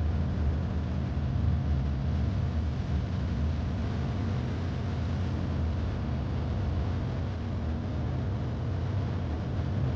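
Steady low mechanical hum over a constant hiss, with no separate knocks or tool strikes.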